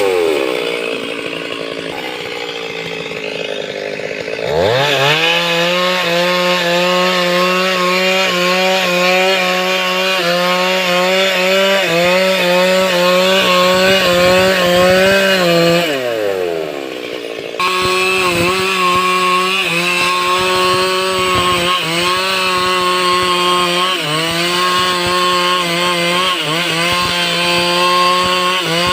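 Stihl chainsaw cutting wood: it runs at a lower speed at first, revs up quickly about four seconds in and holds at full throttle, winds down around sixteen seconds, then snaps back to full throttle with small dips in pitch as it cuts.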